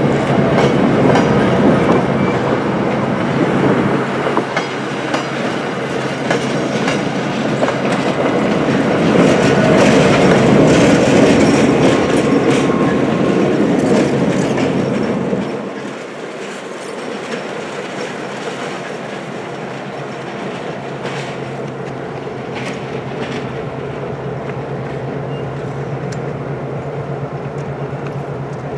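Passenger train passing close by: coach wheels clicking over rail joints, then the Grafton & Upton F7A diesel locomotive going by, loudest just before it clears. About fifteen seconds in the sound drops suddenly to a quieter, steady diesel rumble with scattered clicks.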